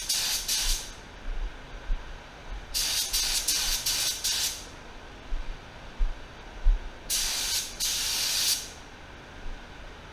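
Walcom Genesi Carbonio spray gun spraying epoxy primer sealer at about 28 psi, with fluid and fan wide open. The air hiss comes in three trigger pulls: one that stops just under a second in, one from about 3 to 4.5 seconds in, and one from about 7 to 8.5 seconds in.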